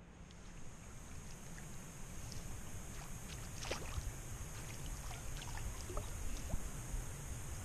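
Ambient sound from a kayak: water lapping and trickling against the hull over a steady low rumble and a high hiss, with a few faint ticks and clicks, most of them in the middle.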